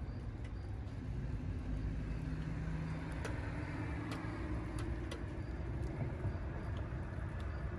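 Steady low outdoor rumble with a passing car, its engine hum rising slightly in pitch in the middle, and a few faint ticks.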